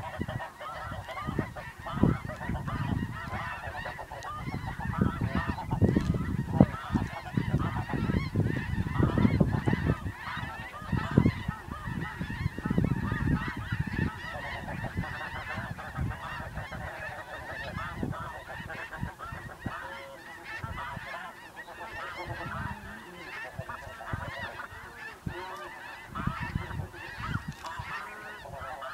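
A large flock of snow geese calling continuously, a dense chorus of overlapping high honks. Low rumbling thumps sit underneath through the first half and fade after about halfway.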